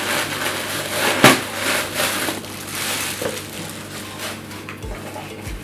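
Rustling and crinkling of a nylon zip pouch and the clear plastic wrap inside it being handled and pulled open, with a sharp crackle about a second in.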